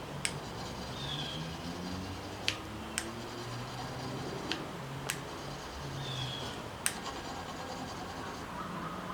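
Steel scraper blade rubbed back and forth on a fine diamond sharpening plate, a quiet scratching with about five sharp clicks at irregular moments.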